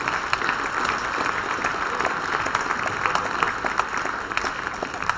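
Audience applauding, a dense, even clapping from many hands that eases slightly near the end.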